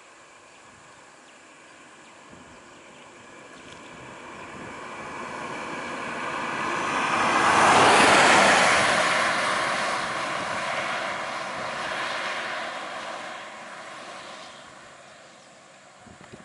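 Bus driving past close by: engine and tyre noise swells to a loud peak about eight seconds in, then fades as it moves off up the road, leaving a steady thin whine.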